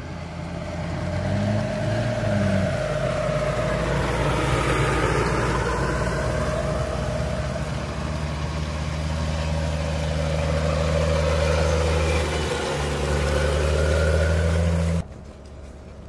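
Stryker eight-wheeled armored vehicles driving past: a steady diesel engine drone with a whine that rises and falls as they go by. The sound cuts off abruptly about fifteen seconds in.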